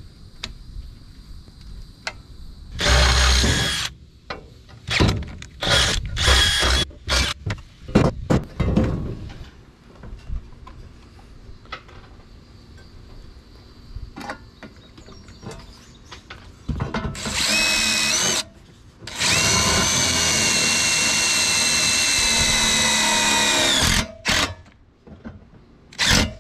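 Cordless drill boring through a steel bracket plate: a few short bursts, then longer steady runs with a high motor whine, the last about five seconds long.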